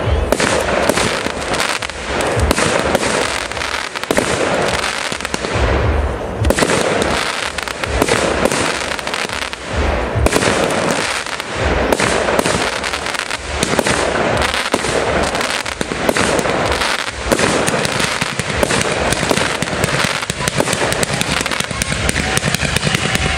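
Fireworks display: a continuous, rapid run of bangs and crackling from bursting aerial shells, with deeper booms every few seconds.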